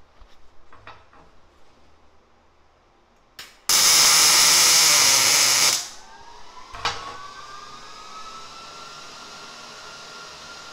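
A loud, steady hiss lasting about two seconds that cuts off sharply, then a click and a faint whine that rises slightly in pitch and levels off over a low steady hum.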